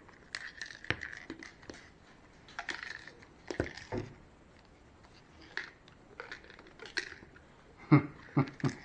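Irregular small clicks, taps and rustling of hands handling small parts and tools, with a cluster of sharper clicks near the end.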